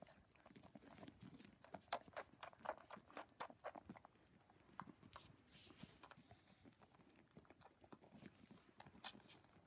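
Cocker spaniel puppies suckling from their mother: a faint, quick, irregular run of wet slurping and smacking clicks.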